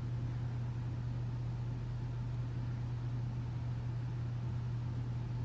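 Steady low hum with a faint even hiss, unchanging throughout: background noise of the recording, with no other sound.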